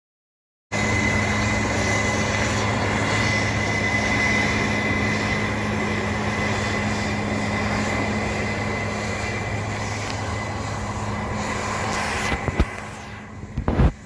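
Case IH combine harvester running steadily under load, picking up barley, with a constant low hum and a steady high whine. The sound cuts in abruptly a little under a second in; near the end come a few sharp knocks and the sound drops in level.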